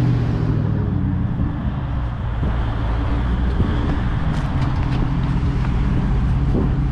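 GMC Sierra's 5.3-litre V8 running through a new Carven TR muffler with a steady low rumble as the truck rolls slowly up and pulls alongside.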